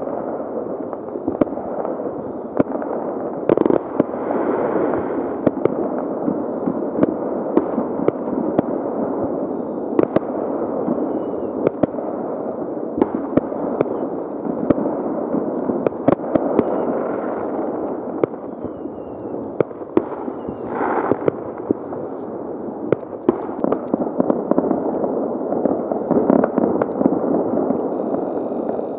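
Many fireworks and firecrackers going off at once: a continuous din of crackling and popping with frequent sharper bangs throughout.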